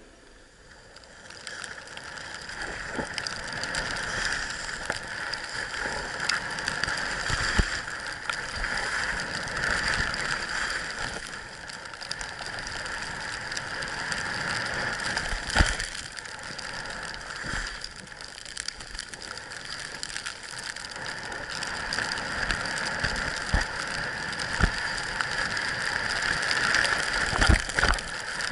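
Steady scraping hiss of sliding down a packed-snow ski slope, the snow grating under the edges, rising in from about a second in. Occasional sharp knocks and bumps cut through it.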